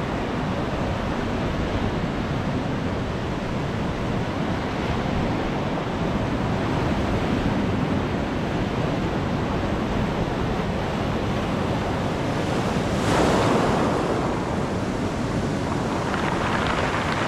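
Ocean surf breaking and washing ashore, with wind buffeting the microphone; one louder surge of surf comes about three-quarters of the way through, and the wash rises again near the end.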